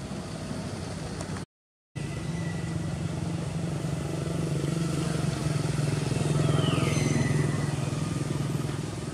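A motor vehicle engine running steadily, growing louder towards the middle and then easing off, with the sound dropping out for half a second about a second and a half in. A short, falling high-pitched call sounds about seven seconds in.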